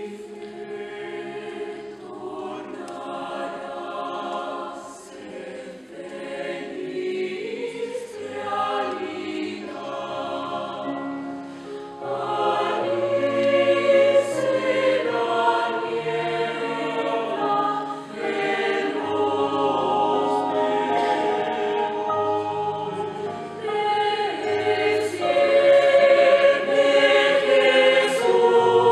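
Mixed choir of sopranos, altos, tenors and basses singing a hymn in sustained chords, growing louder about twelve seconds in and again near the end.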